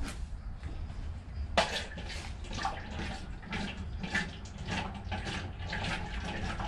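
Peanut oil pouring from its container into an aluminium deep-fryer pot, starting abruptly about a second and a half in and running on as an irregular gurgling pour.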